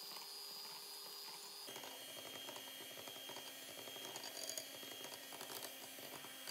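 Breville electric hand mixer running on its lowest speed, beaters whipping cold whipping cream towards soft peaks in a glass bowl: a faint steady motor whine whose pitch shifts a little under two seconds in.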